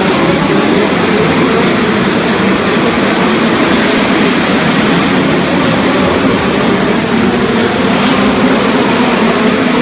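Several open-wheel midget race car engines running hard in a steady, loud roar as the cars lap a dirt track inside an indoor arena.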